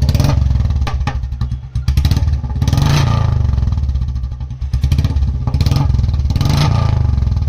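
Royal Enfield Classic 350's single-cylinder engine running loud through a short Punjab silencer with a free-flow bend pipe, blipped up in revs several times between spells of a rapid low beat.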